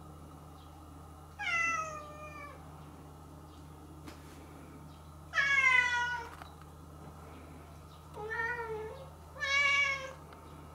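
Domestic cat meowing four times, the first two calls falling in pitch. The second, about five seconds in, is the loudest.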